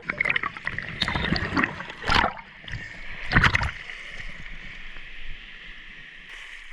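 Water splashing and sloshing, with two stronger splashes about two and three and a half seconds in, settling into a quieter steady wash.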